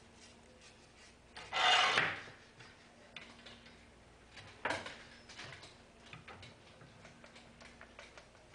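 Metal bar clamps and aluminum angle being handled on a workbench: a brief loud metallic scrape about a second and a half in, a sharp knock near the middle, and small clicks and rubbing in between.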